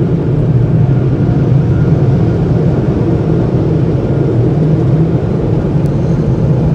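Automatic car wash air dryer blowers running, a loud steady rush of air heard from inside the car.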